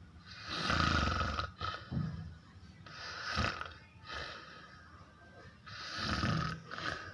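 A sleeping person snoring, several snores in a row about a second apart.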